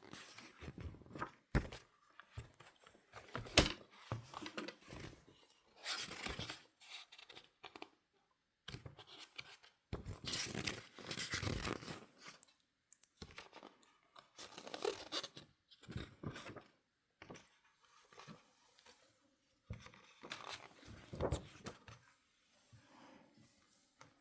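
Book pages being turned and handled: irregular bursts of paper rustling and flicking, with a few sharp taps.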